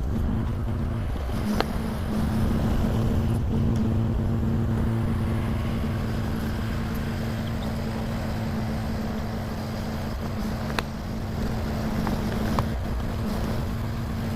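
Heavy equipment engine running steadily at constant speed, a low rumble with a steady hum, with a few faint clicks.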